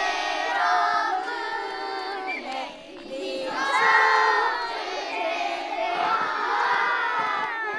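A crowd of young schoolchildren's voices singing and calling out together, many voices overlapping.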